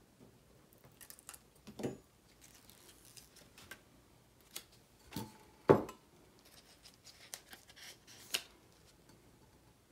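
Faint, scattered taps, clicks and rustles of hands handling a craft tumbler and a vinyl decal on a silicone mat, with one sharper knock with a short ring a little past halfway, as the tumbler is laid on its side.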